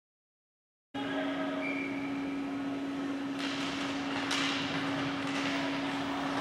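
The audio cuts out completely for about a second, then a steady mechanical hum with one constant low tone goes on under a rushing noise.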